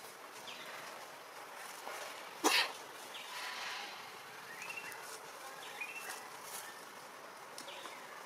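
Outdoor background with faint short high chirps here and there, and one short sharp burst of noise about two and a half seconds in.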